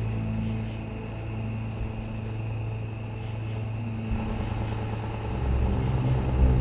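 Crickets chirping steadily over a low, even drone; about five seconds in a deeper low rumble swells up beneath them.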